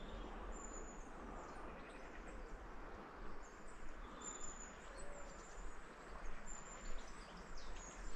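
River Severn running high and fast after heavy rain, a steady rush of water, with a few short high bird calls over it.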